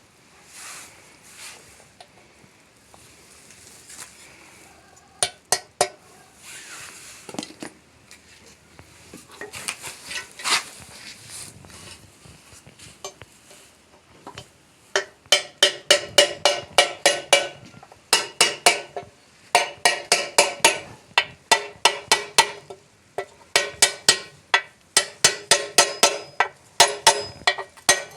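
Hammer blows on steel during a bearing change on a small rice mill and flour grinder, each strike ringing. In the first half there are scattered clinks and scraping of metal parts. From about halfway they come as rapid runs of about three to four strikes a second, with short pauses between runs.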